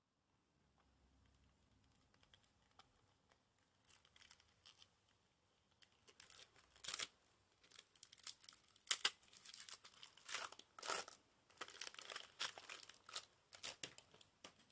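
Clear cellophane shrink-wrap being torn and peeled off a playing-card box, in irregular sharp crinkles and rustles. It starts a few seconds in and is loudest in the middle.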